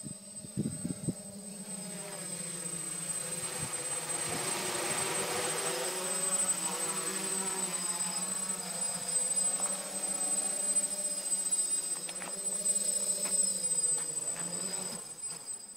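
DJI F550 hexacopter's six electric motors and propellers buzzing steadily. The sound grows louder over the first few seconds as the craft comes closer, then stops near the end as it sets down on the grass.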